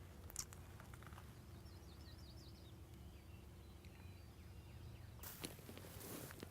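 Faint outdoor ambience: a small bird gives a short, quick trill of high chirps about two seconds in, and a brief rustle follows near the end.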